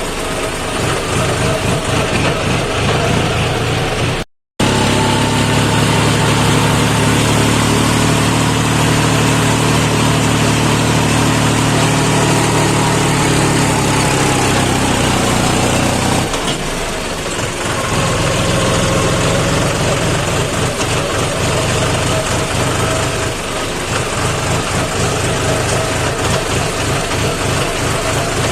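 John Deere tractor's diesel engine running steadily as the tractor drives over a rough road. The sound cuts out for a moment about four seconds in. At about sixteen seconds the steady engine note gives way to a rougher, noisier running sound.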